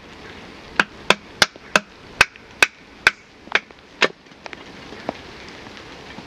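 A wooden baton striking the spine of a bushcraft knife to drive it down through a stick of dry wood, batoning it to split it. About nine sharp knocks come in quick succession, roughly three a second, then two lighter taps.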